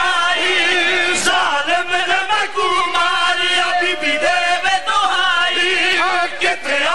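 A man's voice chanting a sung lament in long, wavering held notes, without clear words.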